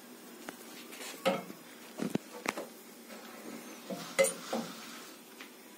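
Scattered knocks and clinks of cookware being handled: a wooden spatula and a non-stick pot on a gas stove, about half a dozen short sounds with the loudest about a second in and about four seconds in.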